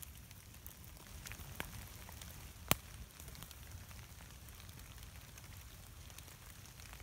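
Wood campfire crackling with many small snaps and one sharp pop nearly three seconds in.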